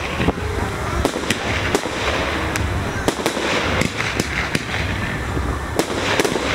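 Fireworks display: aerial shells bursting overhead, a string of sharp bangs and cracks at irregular intervals over a steady background noise.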